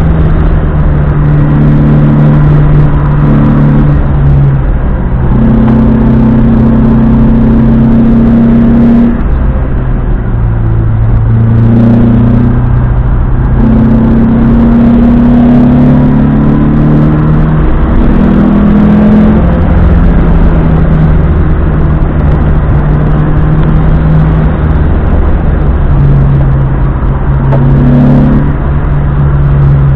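Opel Manta B's engine running hard at speed, loud and continuous, its pitch holding steady for a few seconds at a time and then shifting up or down many times over.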